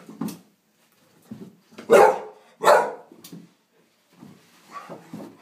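Dog barking in fear at a broom pushed toward it: two loud barks, about two seconds in and again just under a second later, with softer sounds between.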